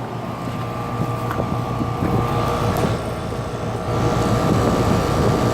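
2011 Rheem 3-ton central air-conditioner condenser running, its Copeland scroll compressor giving a steady low hum under the condenser fan's air noise, with a thin steady tone above. It gets a little louder about four seconds in.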